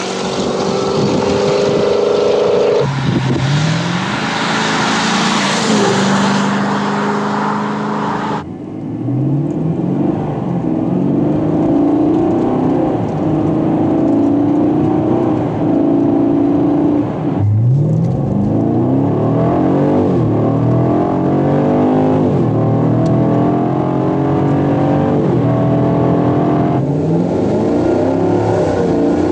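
Chevrolet Camaro SS V8 exhaust under hard acceleration, its pitch climbing and then dropping back at each upshift. It is heard from outside for the first several seconds, then from inside the cabin in spliced runs that switch between the stock and aftermarket header setups.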